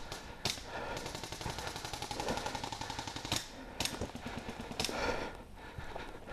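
Airsoft gun firing a rapid full-auto burst lasting about two seconds, with a few louder separate knocks before and after it.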